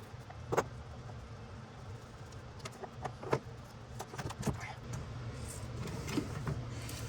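Handling noises: a few separate sharp clicks and knocks, the loudest about three seconds in, over a low steady hum.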